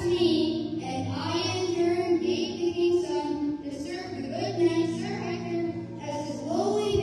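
A child singing a solo into a microphone over instrumental accompaniment, the melody moving in long held notes.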